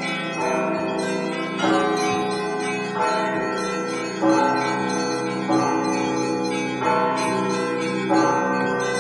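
Russian Orthodox church bells rung by hand for Easter: many bells sounding together, small bells chiming over the sustained hum of larger ones, with a fresh louder stroke about every second and a quarter.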